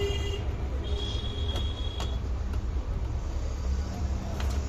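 Steady low rumble of background traffic, with a high horn-like tone lasting about a second, about a second in, and a few light clicks of RCA cable plugs being handled.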